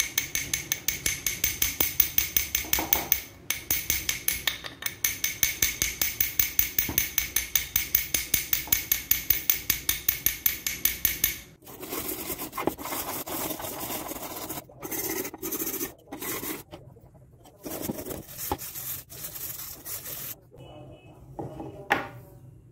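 Hammer tapping a rusty steel adjustable spanner in a fast, even run of about five blows a second, each with a ringing metallic tone. After about eleven seconds this gives way to an abrasive block scrubbing back and forth over the spanner's rusty steel in uneven strokes, which stop shortly before the end.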